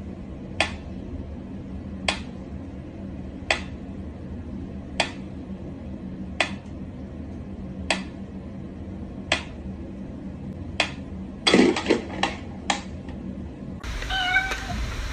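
Mechanical pyramid metronome ticking slowly and evenly, one sharp tick about every second and a half. About eleven and a half seconds in, a quick flurry of clicks and knocks breaks the rhythm as a cat paws at the pendulum.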